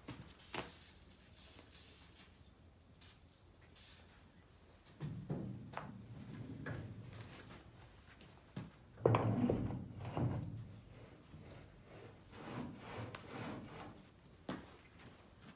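Handling noises as a flat-free tire on its rim is lifted and fitted onto a wagon axle: scattered light knocks, scuffs and rustling. The loudest handling comes about nine seconds in.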